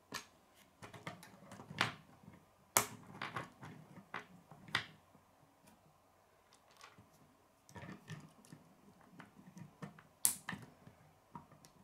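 K'nex plastic rods and connectors snapping together and clicking against a wooden tabletop as pieces are handled. Scattered sharp clicks, the two loudest about three and ten seconds in.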